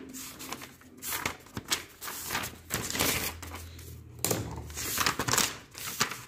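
Textbook pages being turned and handled close to the microphone: a run of short paper rustles and flicks.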